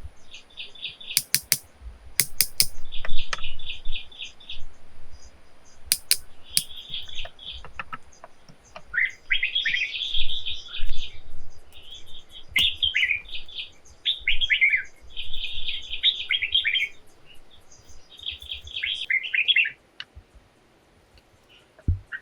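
Small birds chirping in repeated rapid trills and short falling calls, with a few sharp clicks in the first several seconds. The sound drops out shortly before the end.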